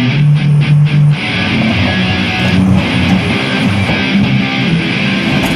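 Guitar music with strummed chords, opening with four short repeated low notes.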